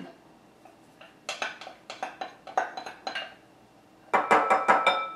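A spatula scraping and knocking against a glass bowl as thick cream soup is scraped out into another glass bowl. Several separate knocks come first, then a quick run of clinks near the end that leaves the glass ringing briefly.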